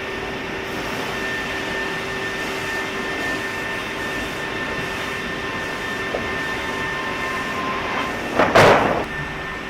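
Sawmill production-line machinery running steadily, a mechanical drone with a constant whine held over it, broken by one loud clunk near the end.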